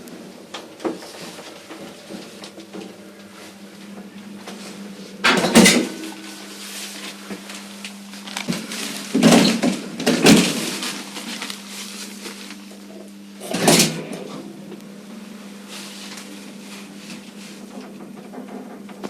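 Original 1938 passenger lift in operation: its doors clatter and bang in three loud bursts, about five, nine to ten and fourteen seconds in. A steady hum from the lift machinery starts with the first bang and runs on.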